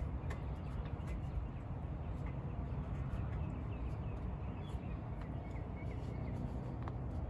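Steady low background rumble with faint bird chirps about halfway through and a few light ticks.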